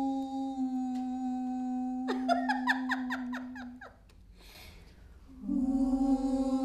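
Voices humming a steady held note a cappella. About two seconds in, a higher voice adds a rapid wavering warble for under two seconds. After a short lull, the hum comes back near the end.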